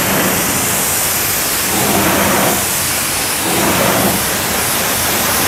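Pressure washer's jet of water spraying onto a car's alloy wheel and tyre, a steady loud hiss of spray, rinsing off the wheel and tyre cleaner foam after the first cleaning pass.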